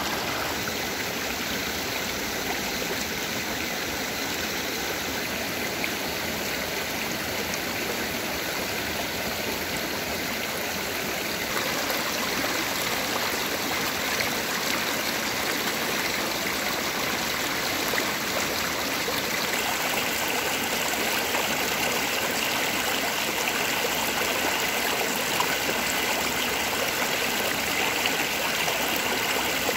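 Shallow mountain stream rushing and gurgling over rocks, a steady noise of running water that grows a little louder about twelve seconds in and again about twenty seconds in.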